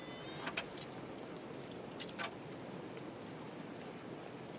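Car keys clicking and jingling in the ignition in two short bursts, about half a second and two seconds in, with no engine cranking or starting: the car won't start. A steady hiss lies underneath.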